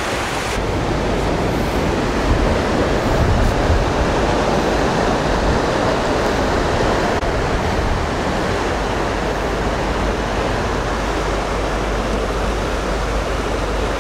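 Rough sea surging against a rocky shore and into a narrow wave-cut inlet: a steady rushing noise with a low rumble underneath, swelling slightly now and then.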